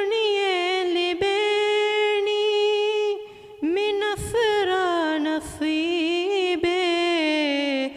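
A teenage boy singing a madhaha, a Maldivian Islamic devotional song, unaccompanied into a microphone. He holds long notes with wavering ornaments and pauses briefly for breath about three seconds in.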